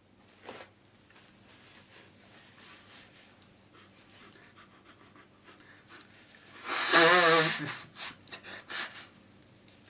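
A person breathing and sniffling during a sneezing fit, with one loud, breathy vocal outburst of wavering pitch about seven seconds in, followed by several short sniffs.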